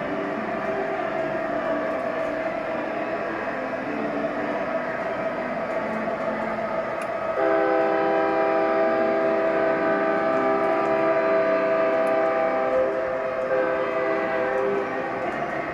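Sound system of an MTH Canadian Pacific Holiday Train model diesel locomotive: a steady running sound, then about halfway through a multi-note horn chord starts suddenly and is held for about seven seconds.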